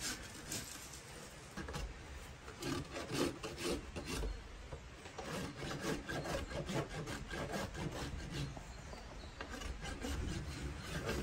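Farrier's hoof rasp filing a donkey's hoof in repeated scraping strokes, levelling the trimmed foot.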